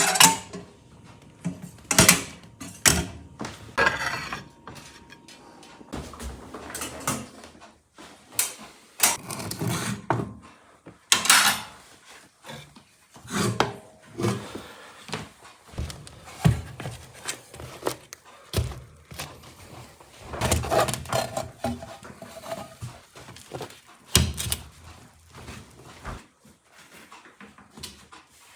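Irregular knocks, thuds and clatter of objects being handled and set down in a small room, with quieter rustling between them.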